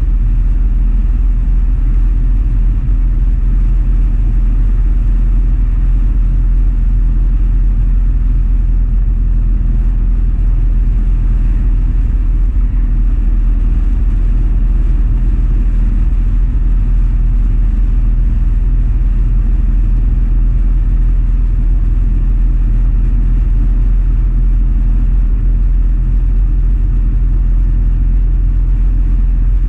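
Motorcycle engine running at a steady cruising speed, with a constant low rumble of wind and road noise.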